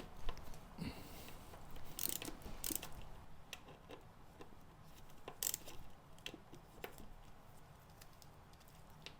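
Hand tools clicking and clinking on metal in scattered, irregular knocks, the louder ones about two, two and a half and five and a half seconds in, while the motorcycle's front spindle pinch bolts are loosened.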